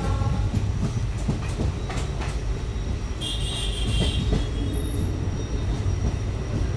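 Passenger train running along the track, a steady rumble with scattered clicks from the wheels over the rails. The last half-second of the WDP4D diesel locomotive's horn sounds at the start, and a brief high squeal sounds about three seconds in.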